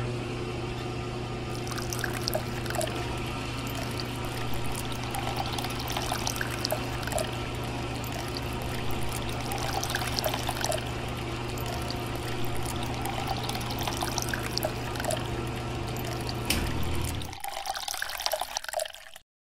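Miniature model water pump switched on, its small electric motor humming steadily while water pours and splashes from the outlet pipe. The motor cuts out near the end, leaving a brief trickle of water.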